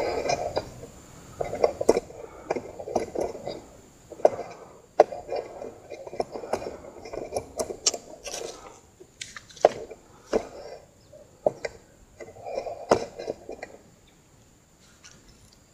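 Camera handling noise: a string of knocks, clicks and muffled rustles as the camera is moved and set up, dying away about fourteen seconds in.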